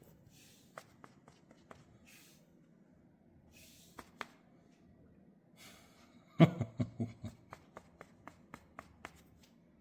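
Angry cat: several short hisses, then a sudden loud outburst about six seconds in, followed by a run of faint, evenly spaced clicks.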